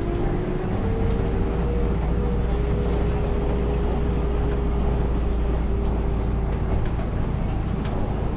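City bus driving along, heard from inside the cabin: a steady low engine drone with a thin whine that rises slightly about a second in and then holds.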